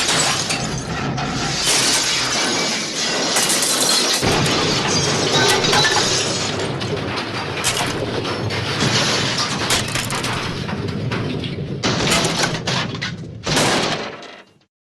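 The MGM 'elephant smash' cartoon crash sound effect: a long, loud jumble of shattering glass and crashing debris with many sharp impacts, fading and then cutting off shortly before the end.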